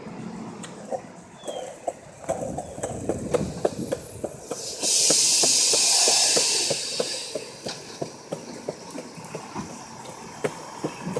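Labrie Top Select recycling truck's air brakes letting out a loud hiss of air for about two seconds, roughly five seconds in, as the truck stops at the curb. Quick rattling clicks run throughout.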